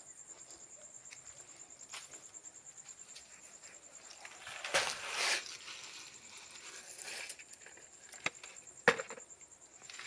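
Hand-tool work on brick and mortar: a rough scrape about five seconds in and a fainter one around seven seconds, then two sharp knocks near the end.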